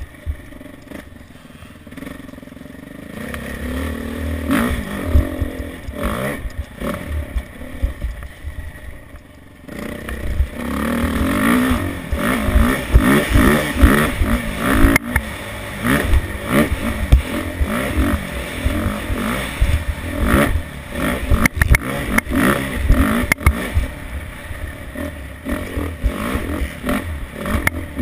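Motocross bike being ridden around a dirt track. The engine runs lower and quieter for the first ten seconds or so, then revs up and down over and over as the rider opens and closes the throttle, with a few sharp knocks among it.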